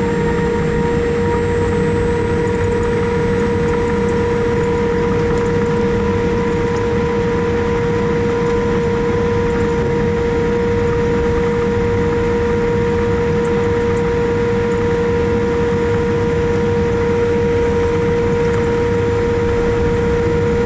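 Cabin noise of a Boeing 787-8 airliner taxiing with its Rolls-Royce Trent 1000 engines at idle: a steady low rumble under a steady whine that holds one pitch, with a fainter higher tone above it.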